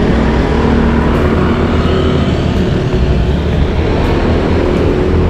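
Road traffic heard from a bicycle riding among it: motorbike and car engines running close by, a steady loud rumble with no break.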